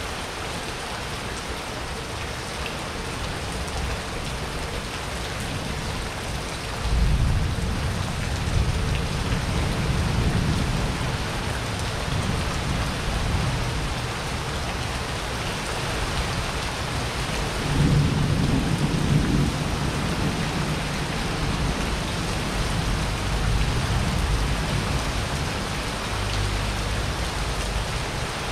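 Heavy rain falling steadily on wet paving during a thunderstorm, with thunder rolling through it. A low rumble breaks in suddenly about seven seconds in and rolls on for several seconds, a second peaks around eighteen seconds in, and a fainter one comes near the end.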